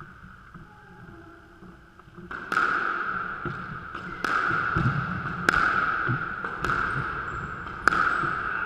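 Squash rally: the ball cracks sharply off rackets and walls about five times, roughly every second and a half, starting a couple of seconds in. Each hit rings in the hard-walled court's echo.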